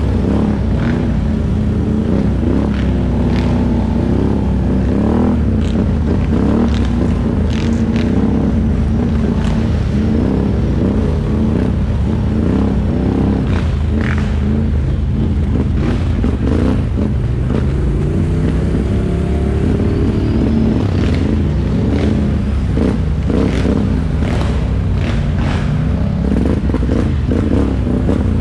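ATV engine running under way, its pitch rising and falling as the throttle changes, with scattered clicks and knocks on top.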